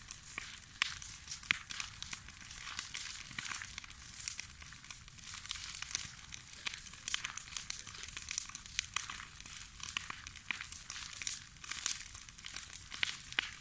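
Bonfire of old house timbers and wooden boards burning, the wood crackling and popping in quick irregular snaps over a steady low rumble.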